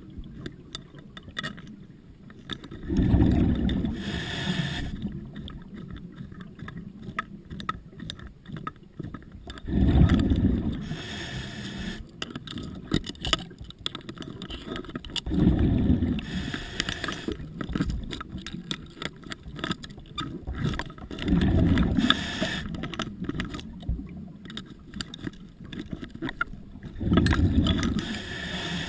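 Scuba diver's regulator breathing underwater: five bursts of exhaled bubbles, each a second or so of low rumble, about every five to six seconds. Faint clicks come between the breaths.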